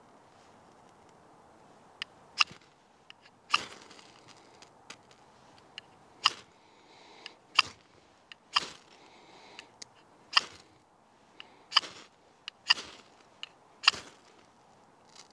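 Knife blade scraped hard down a ferrocerium fire steel rod, striking sparks onto wood-fibre tinder: about nine short, sharp scrapes at uneven intervals of a second or two.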